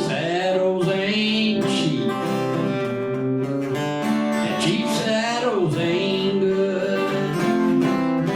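Acoustic guitar played with a man singing over it, a country song performed live, the voice coming in phrases about a second in and again near the middle.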